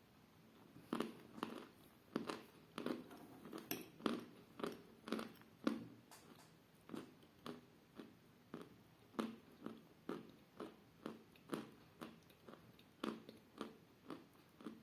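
Close-up chewing of edible chalk: a steady run of short, muffled crunches, about two a second, starting about a second in.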